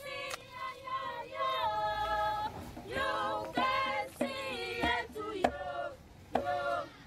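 A choir singing, with held, wavering notes and a few sharp knocks.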